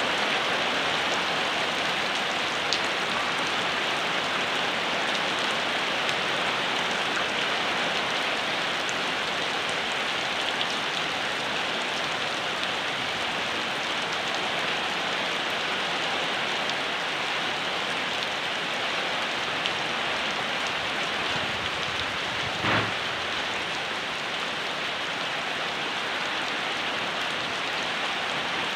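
Steady rain falling, an even, dense hiss of drops on surfaces, with one short dull thump about three quarters of the way through.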